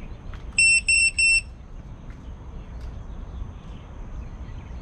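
Three short, identical high electronic beeps in quick succession, from an FPV quadcopter's onboard buzzer, over a steady low background noise.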